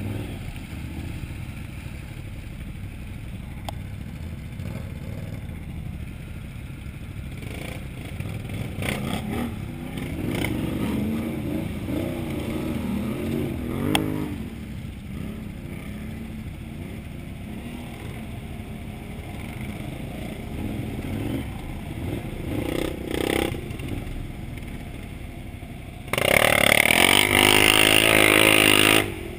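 Can-Am Outlander XMR 1000R's V-twin engine running at low speed through deep mud, its note rising and falling with the throttle. About 26 seconds in it is revved hard and runs loud for about three seconds, then drops back.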